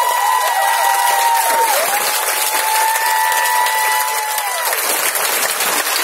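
Concert crowd applauding at the end of a song, with several long high held tones that slide down at their ends.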